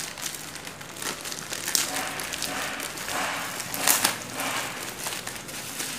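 Plastic courier mailer crinkling and tearing as it is pulled open by hand, with a sharp crackle about four seconds in.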